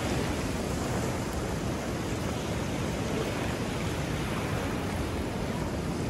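Small river waves washing onto a sandy shore in a steady rush, with wind buffeting the microphone.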